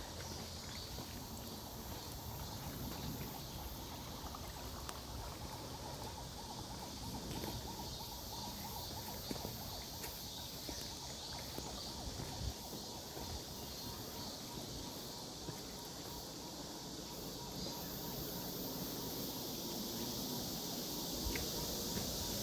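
Forest ambience: a steady high hiss with faint scattered ticks and low knocks, growing a little louder near the end.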